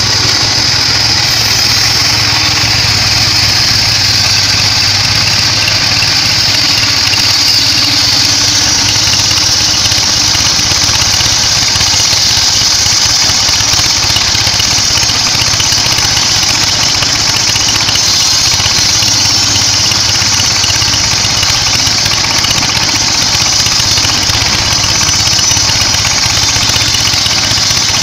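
Sawmill bandsaw running steadily, a constant engine-like drone with a strong high hiss above it that grows louder about a quarter of the way in.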